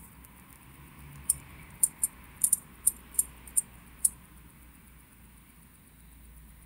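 Small, sharp metallic clicks of watch-movement parts worked by hand with a fine tool at the calendar disc: about eight irregularly spaced clicks over roughly three seconds, starting about a second in.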